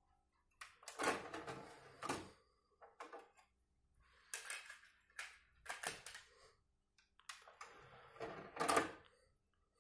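Plastic CD jewel cases and a disc being handled, opened and shut while the disc is changed: a string of short clicks, clatters and rustles, the loudest about a second in and near the end.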